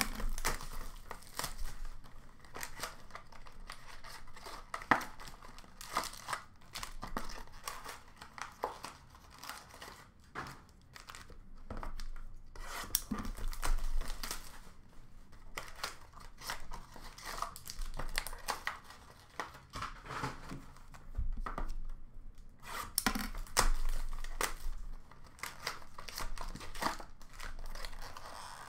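Upper Deck SPx hockey card boxes being torn open by hand: plastic shrink wrap and cardboard tearing and crinkling, with irregular clicks and knocks as the boxes are handled and set down.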